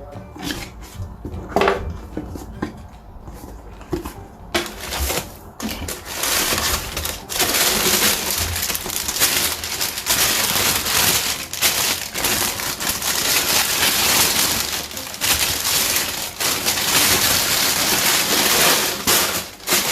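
Packing paper being crumpled and rustled: a few light rustles and clicks, then loud, continuous crackling from about four seconds in that stops just before the end.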